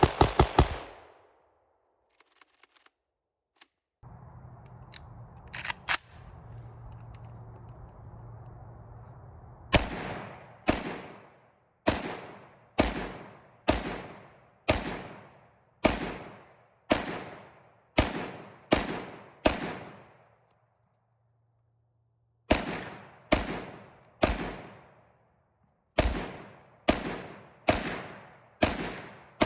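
PSA AK rifle fired in steady semi-automatic shots, about one a second, each shot with a short echoing tail: some twenty shots in two runs, with a pause of about two seconds between them. Before the shooting begins there are a few light clicks and a low steady hum.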